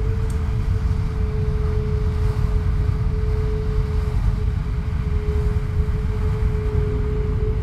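Dark ambient drone from a film score: a deep rumbling noise under one steady held note.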